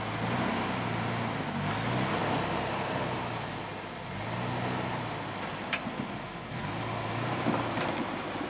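Off-road vehicle's engine running under load, its revs rising and falling several times as it crawls a rock ledge.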